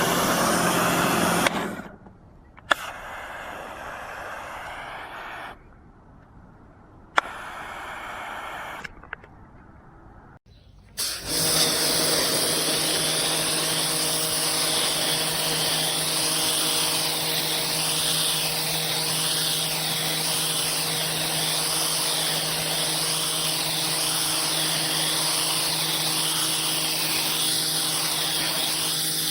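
Karcher K 2 electric pressure washer running and spraying, first in a few short spurts that each open with a click, then from about 11 seconds in running steadily and loudly with a motor hum under the hiss of the jet.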